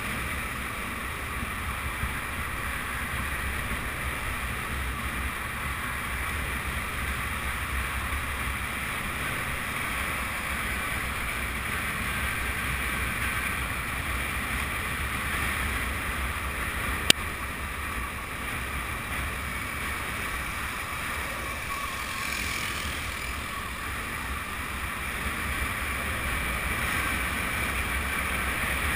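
Steady rushing wind and longboard wheels rolling fast on asphalt during a downhill run, heard through a GoPro's built-in microphone, with one sharp click about seventeen seconds in.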